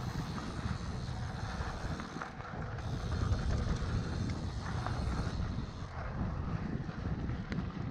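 Wind buffeting a GoPro microphone as a mountain bike rolls fast down a dirt singletrack, a steady low rumble with tyre noise and a few small clicks and rattles from the bike.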